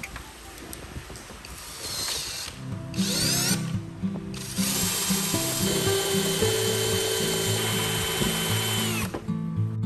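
Electric power-tool motor spinning up briefly twice with a rising whine, then running steadily for about four and a half seconds and stopping just after nine seconds in. Background music plays underneath.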